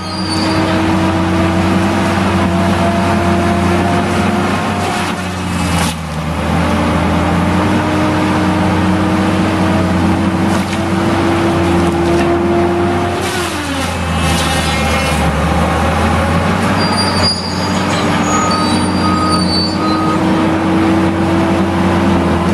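Heavy machinery engine running under load, its pitch slowly rising and dropping back a couple of times. A reverse alarm gives a few short beeps near the end.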